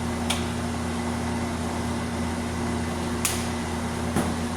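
Steady low mechanical hum, like a fan or appliance motor running, with a few faint clicks scattered through it.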